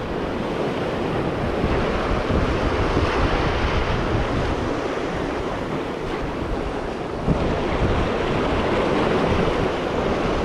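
Sea waves breaking and washing against the rocks of a jetty, with strong wind buffeting the microphone. A louder surge comes in about seven seconds in.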